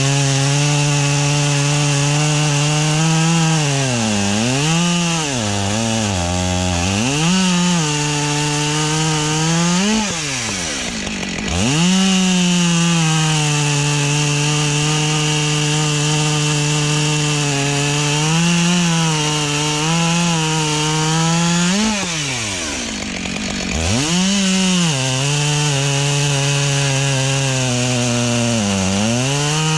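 Two-stroke chainsaw cutting wood at full throttle, its engine note sagging and recovering as the chain loads in the cut. Twice, about a third of the way in and again about three quarters through, the throttle is let off so the pitch drops sharply, then the saw revs straight back up.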